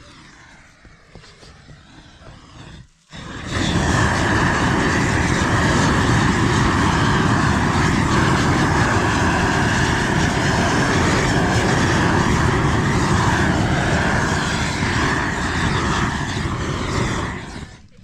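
Gas torch burner burning with a loud, steady rush of flame, as used to melt Izogam bitumen roofing membrane onto a roof. It starts about three seconds in and stops shortly before the end.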